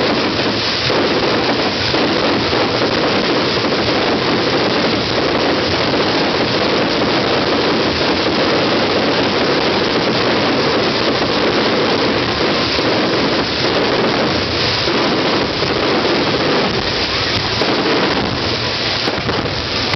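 Fireworks giving a continuous dense crackle that merges into a steady, rain-like hiss, with no separate bangs standing out.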